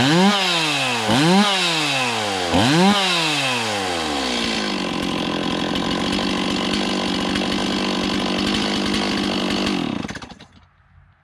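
Stihl MS260 Pro two-stroke chainsaw revved to full throttle three times, its pitch falling back each time, then idling steadily before it is switched off near the end. The revving tests the throttle response after the low-speed carburettor screw was adjusted for a lean mixture, and the engine drops back to idle without bogging.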